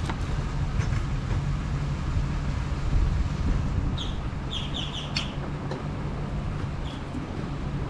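Steady low mechanical rumble, like a motor running, with a short run of high chirps about four to five seconds in.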